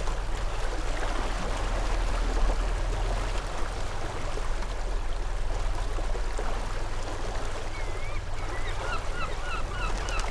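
Steady rush of water and wind as a small boat runs under an electric outboard, with a low steady hum underneath. Near the end a bird calls a quick run of short chirping notes, about three a second.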